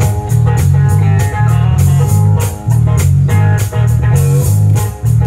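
Live rock band playing an instrumental passage: electric bass line, electric guitar and drum kit keeping a steady beat, with no vocals.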